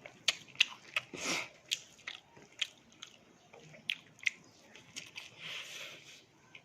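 A person chewing and biting into crispy fried fish with rice, with sharp, irregular crunches and mouth clicks, most of them in the first couple of seconds.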